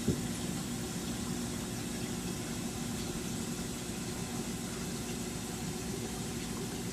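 Steady mechanical hum of aquarium pumps with an even hiss of moving water, and one short click just after the start.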